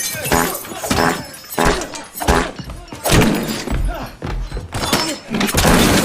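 Comedic fart sound effects, one after another, mixed with the thuds and crashing impacts of a fight.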